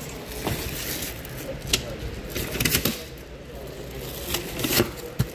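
Carlton hard-shell suitcase being handled, with its telescopic handle worked: irregular clicks, knocks and scrapes of plastic and metal, the sharpest a little under two seconds in and near the end.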